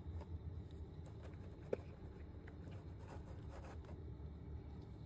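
Faint rustling and light ticks of cotton-gloved hands handling a clear plastic blister tray and lifting small figure face plates out of it, with one sharper click nearly two seconds in.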